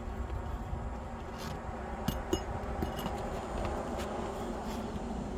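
A few light metallic clicks and scrapes from a roof snake (shingle ripper) working under asphalt shingles against the roofing nails, over a steady low background noise.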